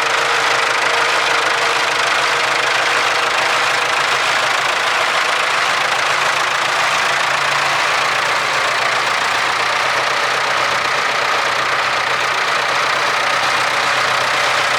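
Large tractor's diesel engine running steadily at an even speed.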